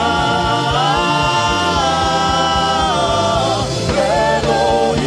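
Gospel worship singing: a voice holds long, slowly gliding notes over accompaniment with a steady low beat.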